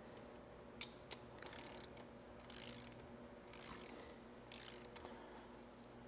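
Hand socket ratchet clicking faintly in short runs on each back-swing, four runs about a second apart with a couple of single clicks about a second in. It is running down the ARP main bearing cap fasteners on an MGB B-series block before they are torqued.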